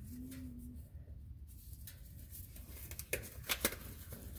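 Disposable gloves being pulled on by hand: faint rustling of the glove material, with a few quick snaps a little after three seconds in.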